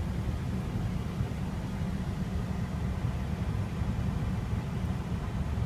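Steady low rumble inside the cabin of a 2008 Nissan Armada, its engine running with the air conditioning blower switched on and blowing.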